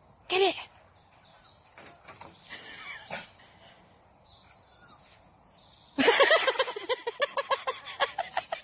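A dog gives one sharp bark just after the start. Faint bird chirps follow, and then from about six seconds in a rapid run of high, excited yelping barks, about five a second.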